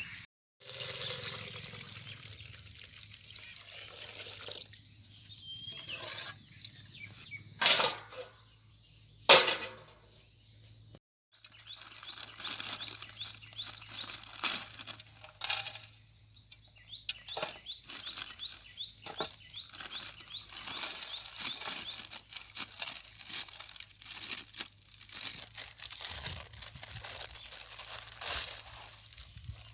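Steady high-pitched chorus of crickets or other insects, with a few sharp knocks about eight and nine seconds in and scattered lighter clicks.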